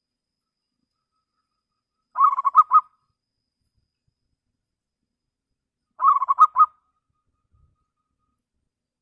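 Zebra dove (local Indonesian perkutut) cooing: two short phrases of several quick, clear notes, about two seconds in and again about six seconds in.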